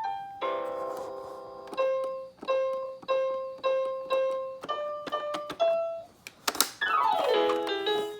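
A baby's battery-powered toy piano playing electronic notes: a held note, then the same note struck six times about twice a second, a few higher notes, a sharp click, and a falling sweep of tones near the end. Its batteries are running low.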